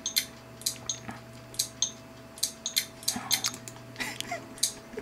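iBook G3 laptop clicking and ticking irregularly, two to four sharp clicks a second, over a faint steady hum.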